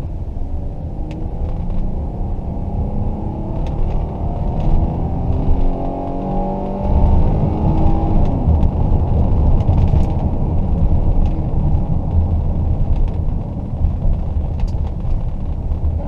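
The Ford Edge's V6 engine revs hard in first gear under full throttle, heard from inside the cabin. Its pitch climbs for about seven seconds, then gives way to a louder, rough rumble. This roughness fits the high-RPM misfire on cylinders 2 and 6 that the driver is trying to bring on.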